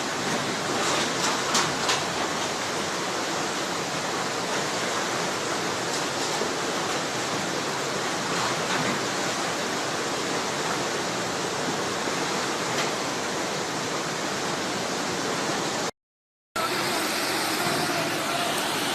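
Steady rushing of fast-flowing floodwater. The sound cuts out briefly near the end, then a similar rush of water resumes.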